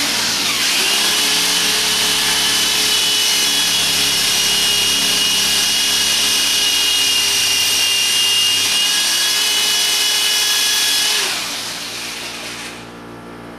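Old electric drill boring into a concrete block wall. It runs steadily with a high whine for about eleven seconds, then stops and winds down.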